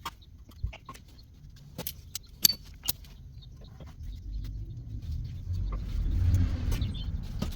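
A few sharp metallic clinks, like steel tools and parts being handled, then a low rumble that builds over about three seconds and stops.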